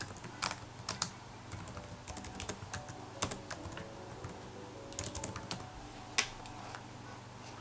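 Typing on a computer keyboard: irregular key clicks with short pauses between them as a word is typed in.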